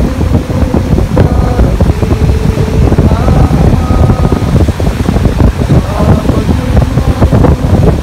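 Wind buffeting the microphone in a heavy, fluctuating rumble over the rush of sea waves breaking on the shore.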